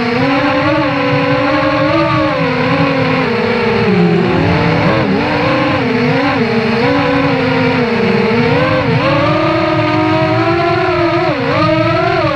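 Brushless motors and propellers of an FPV racing quadcopter, Novak Breeze motors spinning HSX5045 props, whining as they fly, the pitch rising and falling constantly with the throttle, dipping lowest about four seconds in, over a steady rush of air.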